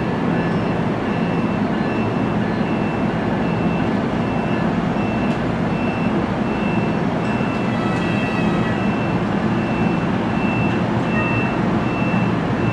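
NJ Transit bi-level passenger train arriving slowly: a steady rumble of steel wheels rolling on rail, with a faint steady high whine over it.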